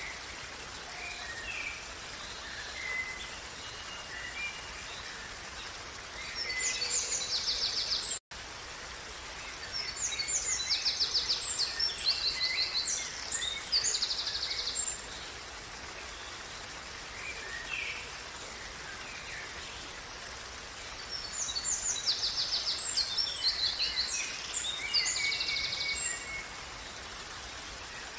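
Steady rush of a running stream, with a songbird singing three bouts of quick, high trilled phrases. A split-second gap cuts all sound just after the first bout.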